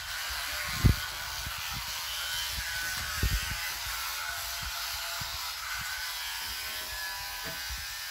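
Electric toothbrush buzzing steadily while brushing a child's teeth, with two short low thumps, about a second in and about three seconds in.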